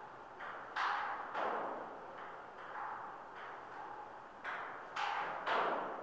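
Table tennis rally: a celluloid-type ball clacking back and forth off rubber paddles and the table top in an irregular run of sharp taps, each with a short echo.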